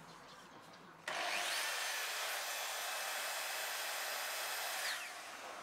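A small electric power tool's motor starts about a second in, pitch rising as it spins up, runs with a steady whir for about four seconds, then winds down and stops near the end.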